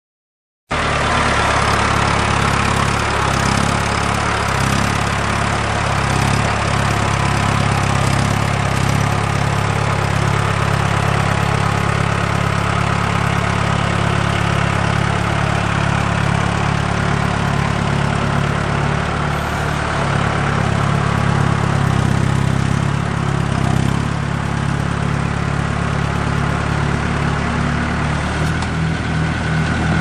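Four-wheel-drive Mahindra tractor's diesel engine running steadily as the tractor works loose dirt with a rear box blade. It cuts in abruptly just under a second in.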